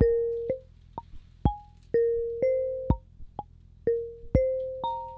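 Modular synth sequence: an Intellijel Plonk physical-modelling voice plays a marimba-like melody of short struck, decaying notes at about two per second. A simple drum from an After Later Audio Pique module (a Mutable Instruments Peaks clone) hits on every third beat, giving a waltz-like feel.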